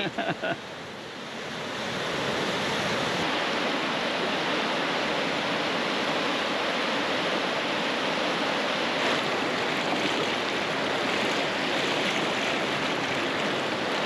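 Fast white water of the Maligne River rushing through the canyon: a steady, even rush that swells over the first couple of seconds and then holds level.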